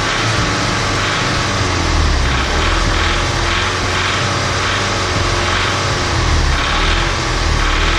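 Audi S3 2.0 TFSI (CDLA) turbocharged four-cylinder petrol engine running, its speed rising and falling a little as it is revved up and down. It has a diesel-like clatter that the owner takes for a cam noise or knock.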